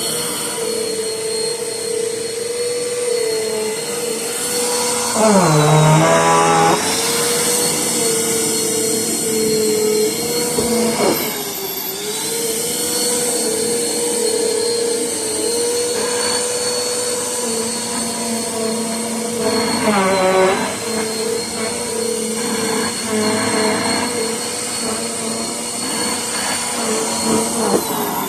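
Household vacuum cleaner running steadily with a high motor whine. Its pitch dips and recovers four times, most markedly about six seconds in, where it also grows louder.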